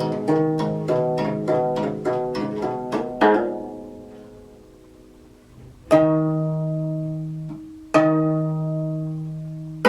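Gayageum (Korean plucked zither) played solo. A quick run of plucked notes ends about three seconds in and rings away to quiet. Then come three single strong plucks about two seconds apart, each left to ring.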